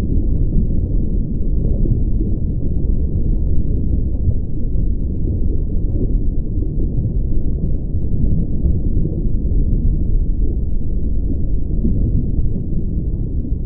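Steady, muffled underwater rumble of churning water as a decommissioned Canadian Navy destroyer sinks, picked up by a GoPro in its housing, with no high end.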